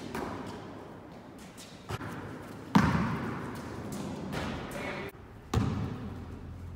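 A basketball bouncing and thudding on a hard court: a few separate hits, the loudest nearly three seconds in and another about five and a half seconds in, each dying away with a short echo.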